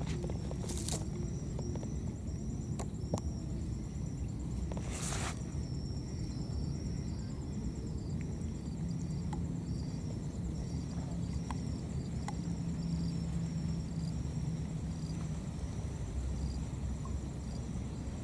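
Outdoor ambience: a steady high insect trill pulsing several times a second over a low rumble, with a few light clicks and a short rustle about five seconds in.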